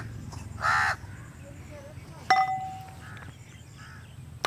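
A crow caws once near the start. About two seconds in comes a single metallic clang with a short ring.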